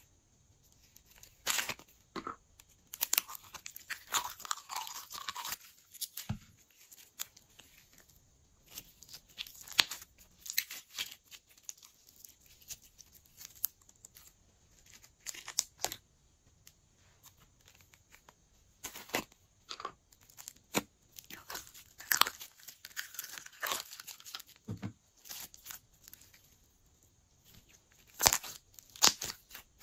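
Hands squeezing and kneading glossy pink glitter slime: wet, sticky pops and crackles of trapped air coming in irregular clusters with short quiet gaps.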